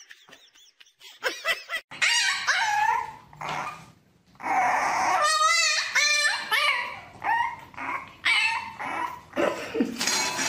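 A puppy whining and yapping in a run of short calls, starting about two seconds in, some with a quickly wavering pitch.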